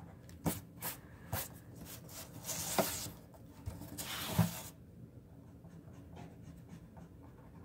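Eraser rubbing back and forth on drawing paper to take out pencil guidelines, in two short spells about two and a half and four seconds in, among a few light taps on the paper.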